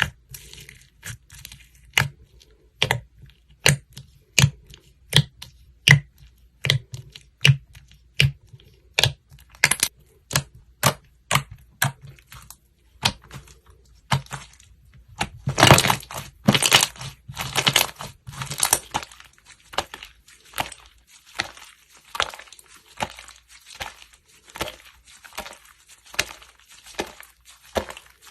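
Slime being pressed and worked, giving sharp crackling pops about once a second, with a denser, louder run of crackles about halfway through.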